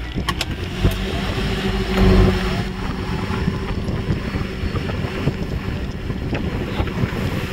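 Parasailing tow boat's engine running steadily under load as it pulls the parasail and rider aloft, with wind buffeting the microphone.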